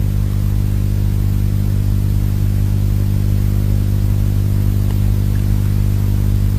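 Steady low drone of propeller aircraft engines, an even hum that does not change in pitch or loudness.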